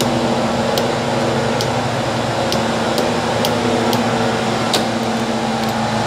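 Steady mechanical hum with a low drone, overlaid by light, sharp clicks about once a second.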